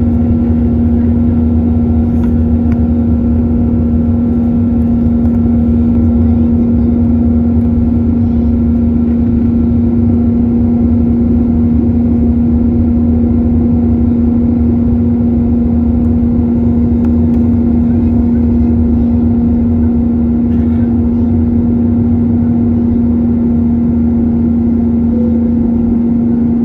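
Airbus A321-231 in flight, its IAE V2500 turbofans giving a steady drone: a constant low hum over a rumble, with no change in level.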